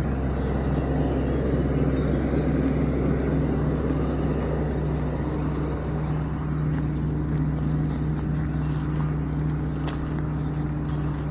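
Engine of the vehicle carrying the camera, running steadily at an even speed as it drives slowly along a grass track.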